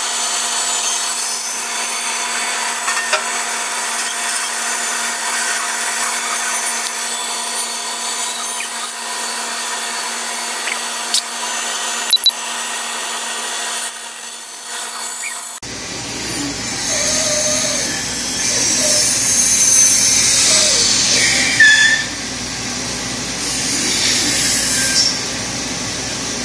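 Grizzly G0555 14-inch bandsaw running and cutting a thick wood block: a steady machine hum with a blade whine. About fifteen seconds in the sound changes abruptly to a fuller, louder cut whose pitch shifts as the wood is fed and turned.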